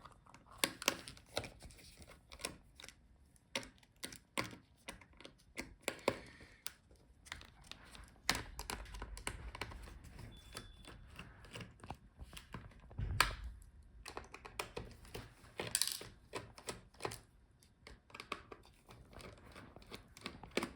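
Irregular small clicks and taps of a screwdriver and tiny screws being undone and handled inside a laptop's open chassis, with a dull thump about thirteen seconds in.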